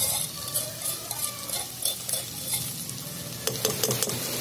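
Steel ladle stirring and scraping masala around a steel kadhai while the masala sizzles in the hot oil, with short scraping strokes and a few sharper clicks of the ladle against the pan near the end.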